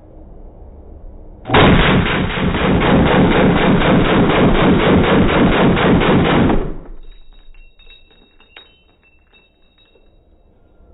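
Caracal CAR816 A2 5.56 mm rifle firing a fast, unbroken string of shots, starting about one and a half seconds in and lasting about five seconds before stopping abruptly. A few faint clicks and metallic taps follow.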